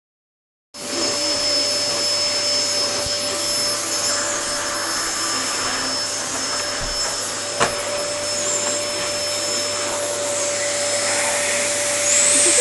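Vacuum cleaner switched on about a second in, then running steadily with a constant whine over its rushing noise. A single sharp click comes about halfway through.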